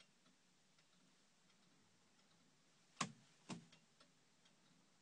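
Turn-signal stalk of a 1968 Fiat 500F switched with two sharp clicks half a second apart about three seconds in, among faint ticking from the indicator flasher as the turn signals are tested.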